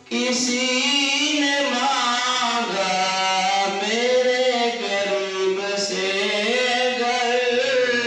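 A man singing an Urdu naat unaccompanied: long melodic lines of held, bending notes with no breaks.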